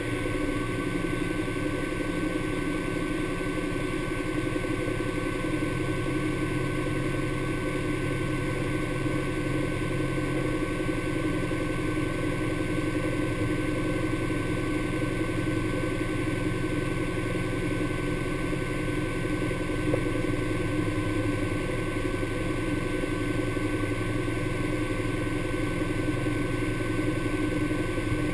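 Honda Pioneer 1000 side-by-side's parallel-twin engine idling steadily, with the vehicle standing still.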